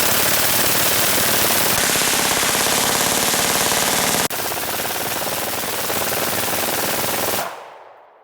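Sustained full-auto fire from a suppressed rifle, a dense, rapid stream of shots with a brief break a little past halfway. The fire stops about seven seconds in and fades out.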